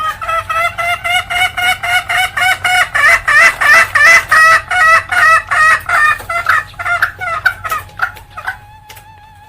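Female junglefowl giving her 'ngekek' cackle: a long, fast series of repeated clucking notes, about four to five a second, growing louder toward the middle and then tailing off before the end.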